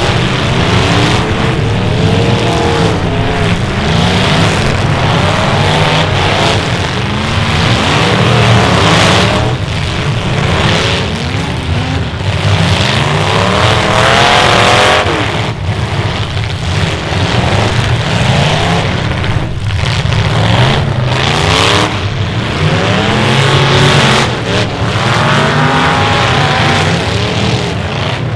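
Many demolition derby cars' engines revving hard together, their pitches rising and falling again and again over a loud, steady mass of engine noise, with now and then a short knock as cars collide.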